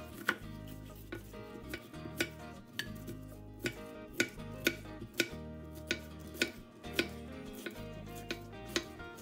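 Kitchen knife chopping a zucchini on a wooden cutting board: sharp chops about every half second, a little uneven, over background music.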